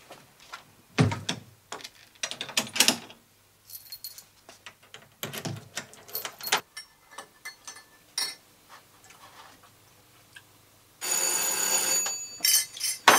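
Electric doorbell ringing for just over a second near the end, after a few scattered knocks and clicks.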